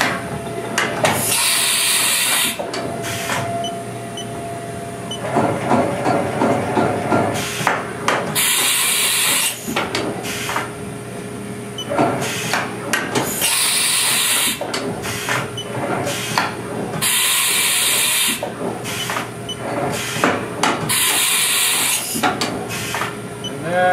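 Haas VF-3 vertical machining center running repeated automatic tool changes: five sharp hisses of compressed air from the spindle's tool release, each about a second long and spaced roughly four seconds apart, with clunks, clicks and rattling from the tool changer between them, over a steady machine hum.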